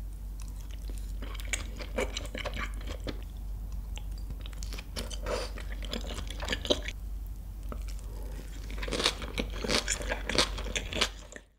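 Close-miked chewing of raw beef tartare (yukhoe): wet mouth sounds with soft clicks and smacks, coming in three bunches, over a low steady hum.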